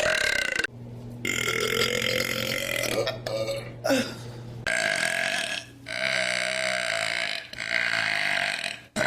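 A string of long, drawn-out human burps, one after another, with sudden cuts between them.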